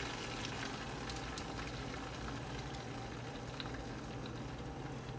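Beaten egg and chopped vegetables sizzling over fried potato chips in a hot nonstick frying pan as the egg is poured in: a steady soft hiss with a few light crackles.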